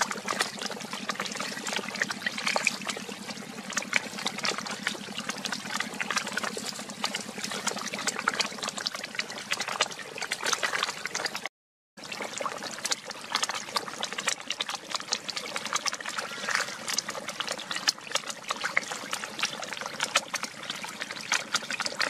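A crowd of small snakeheads splashing and smacking at the water surface while feeding on a lump of feed: a dense, continuous crackle of tiny splashes. The sound cuts out briefly about halfway through.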